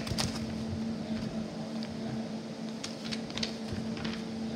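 A steady low hum, with scattered clicks and rustles of a handheld recording device being moved about.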